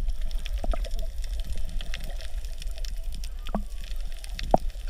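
Underwater sea ambience heard through a submerged camera: a steady muffled low rumble with a faint watery hiss and scattered small clicks and pops, the clearest about three and a half and four and a half seconds in.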